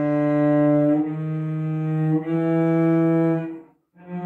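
Cello bowed in three long sustained notes, each a little higher than the last, on an instrument that has a wolf tone on the F of its G string. The sound stops briefly near the end and a fresh bowed note begins.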